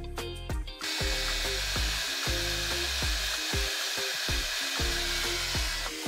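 A steady, even hiss starts about a second in and holds until it stops near the end, over background music with a steady beat.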